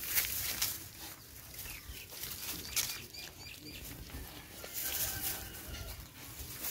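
Puppies eating soft rice from a plastic bowl: wet chewing and lip-smacking clicks, with a few faint high chirps about three seconds in.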